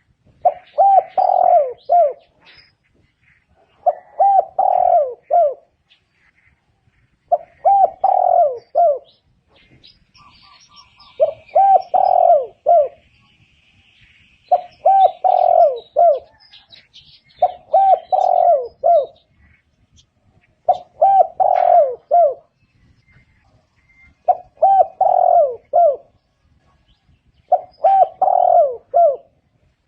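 Spotted dove cooing: a repeated phrase of several low coo notes, coming about every three and a half seconds, nine phrases in all. Faint chirps of other small birds can be heard between phrases.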